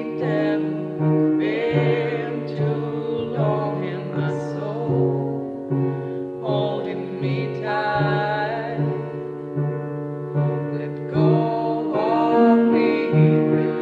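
Music: a repeated low piano accompaniment under a sung melody, its long notes wavering in pitch.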